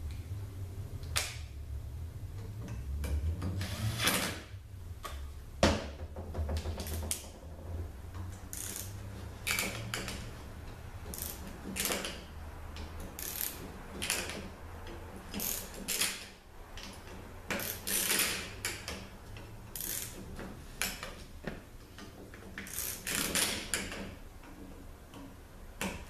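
Hand ratchet wrench clicking in short strokes, a second or two apart, as bolts on a 48RE transmission valve body are run down and tightened.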